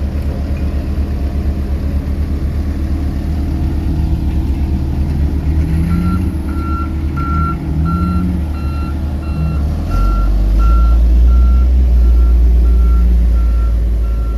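Reversing alarm on a construction vehicle at an asphalt paving site, beeping steadily about one and a half times a second from about six seconds in, over the deep running of heavy diesel machinery. The engine rumble grows louder about ten seconds in.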